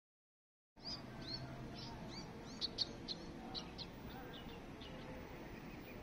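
Sparrows chirping: a quick run of short, high chirps that starts abruptly about a second in and thins out after a few seconds, over a steady low background hum.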